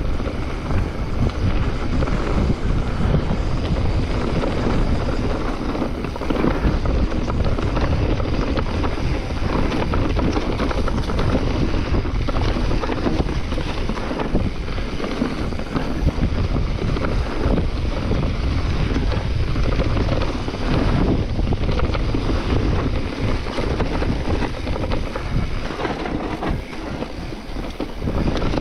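Mountain bike ride heard from the rider's camera: wind rushing over the microphone, with the tyres rolling over a leaf-covered dirt trail and the bike rattling over bumps.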